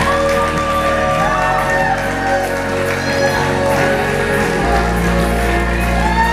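Live rock band playing loudly, with held notes over a deep bass line that shifts note twice, and shouts and whoops from the audience.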